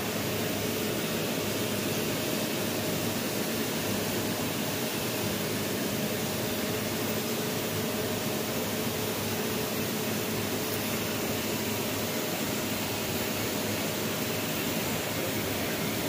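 Steam hissing steadily from a standing Nilgiri Mountain Railway steam locomotive, an even, unbroken hiss with a faint steady tone underneath.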